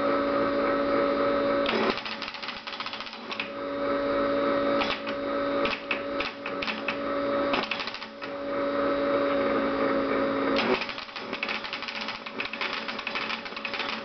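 Keys of a Tracor AN/UGC-129 teletype clicking quickly under typing, while the machine gives a steady hum that comes on and cuts off in stretches of about two seconds. Near the end the hum stops and only a dense run of key clicks is left.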